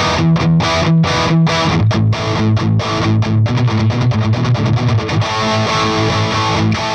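Distorted electric guitar through a Peavey Bravo 112 all-tube combo amp on its gain channel, set for a hard rock tone. Choppy rhythmic chords for about the first two seconds give way to busier riffing, then a chord is left ringing from about five seconds in.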